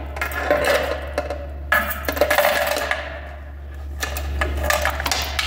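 A bunch of metal keys jingling and clinking in a run of small, sharp clinks as they are handled and set down, over a steady low hum.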